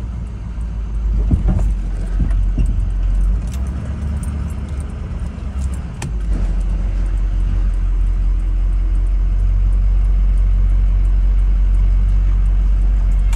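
Ford F-350 pickup running, a steady low engine and road rumble. A few clicks and knocks come through in the first half, and the rumble evens out about halfway through.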